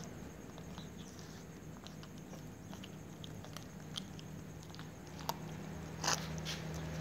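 Cats crunching dry kibble: scattered small crunches and clicks, with two louder crunches about five and six seconds in, over a low steady hum.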